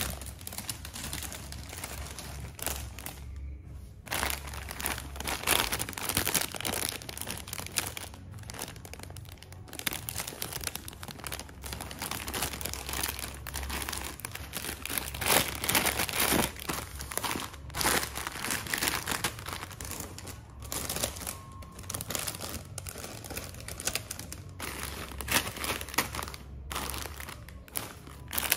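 Foil-lined plastic snack bags of popcorn crinkling and rustling as they are picked up, shuffled and set down by hand. The crackling is continuous and irregular, with a couple of short pauses.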